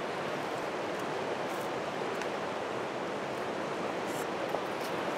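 Steady rush of a fast-flowing river running over a cobble bed.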